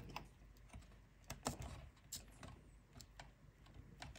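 Faint scattered clicks and taps, about seven, the loudest about a second and a half in, as a flat ribbon cable is worked by hand into a plastic circuit-board connector.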